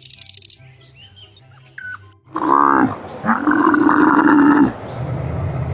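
A large animal's loud call over background music, starting about halfway through: a short falling note, then a steady held note of about a second and a half.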